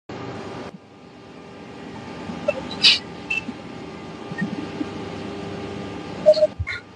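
Steady background hum of a room, with a few brief faint noises: a short sharp sound about three seconds in, and a couple of small knocks and sounds near the end.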